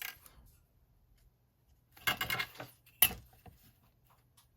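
Handling noises of craft tools on bookboard as it is measured and marked: a click at the start, a short scraping rustle about two seconds in, and a sharp knock a second later, the loudest, followed by a few faint ticks.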